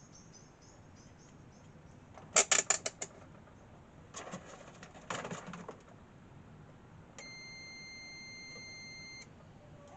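Clattering clicks of metal tools and parts being handled on a workbench, loudest in a quick run of clicks a couple of seconds in. Near the end comes a steady, high electronic beep about two seconds long that starts and stops abruptly.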